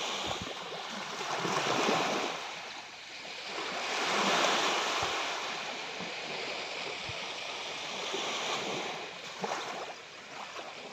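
Sea waves washing onto the shore, the surf rising and falling away in slow surges. It is loudest about two seconds and four and a half seconds in.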